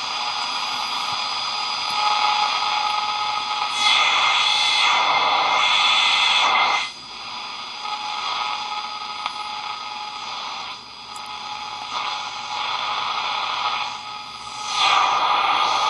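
Zenith K421W Circle of Sound AM/FM radio on the AM band giving off static and hiss, with faint steady whistles. The noise swells louder about four seconds in and again near the end, with dips between.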